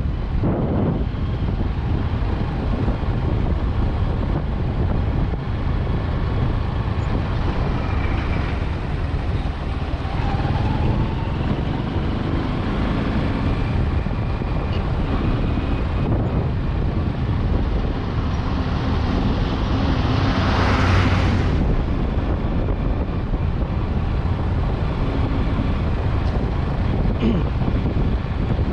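Steady vehicle and road noise with wind on the microphone. About twenty seconds in, a brief swell of noise like a vehicle passing close by.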